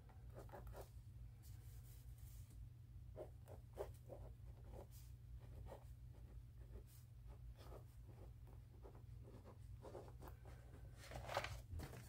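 Faint scratching of a mini ballpoint pen writing on lined spiral-notebook paper, in a string of short strokes.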